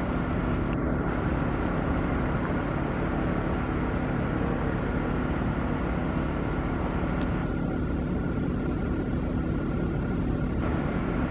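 Steady drone of a running engine with a constant hum, unchanging in level.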